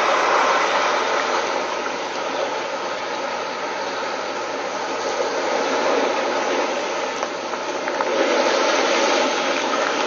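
Waves breaking and washing over a rocky Lake Michigan shore: a steady rushing surf that swells again about eight seconds in.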